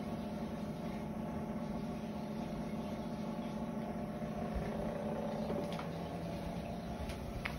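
Steady mechanical hum of a running machine or motor, holding several constant tones, with a few faint clicks in the last couple of seconds.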